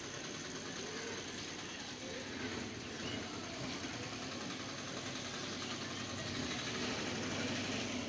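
Steady background noise: an even, continuous hum and hiss with no distinct events.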